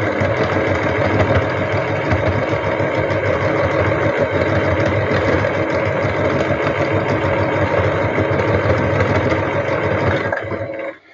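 Electric sewing machine running steadily, stitching appliqué fabric with a rapid needle action, then stopping about ten and a half seconds in.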